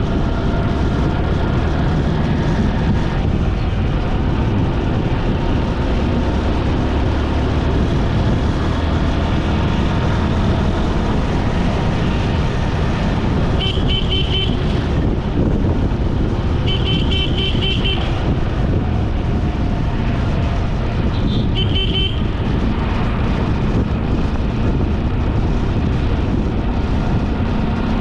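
Steady rumble of a motorbike ride on a road: engine, tyre and wind noise. A vehicle horn honks three times in the second half, each sounding for about a second.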